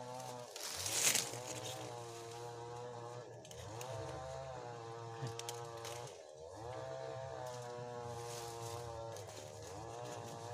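A small engine running steadily, its pitch dipping and climbing back up about every three seconds. A brief rush of noise comes about a second in.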